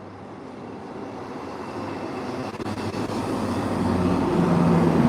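An engine approaching, growing steadily louder, with a low hum over a broad rushing noise.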